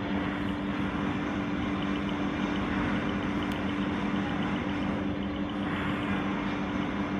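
Steady mechanical hum: an even rushing noise with a constant low two-note drone and no change in level.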